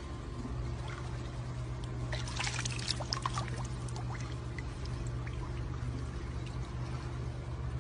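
Faint water sloshing and trickling as a dog paddles in a swimming pool, with a few small splashes about two to three seconds in, over a steady low hum.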